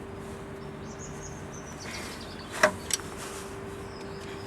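Two sharp metallic clicks about a third of a second apart from the brake pad retaining pins and clip being worked on a disc brake caliper, over a steady faint hum. A faint descending run of high bird chirps comes just before them.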